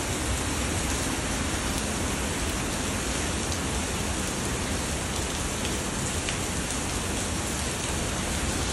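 Hurricane rain and wind: a steady, unbroken rushing noise of heavy rain with a deep rumble beneath it.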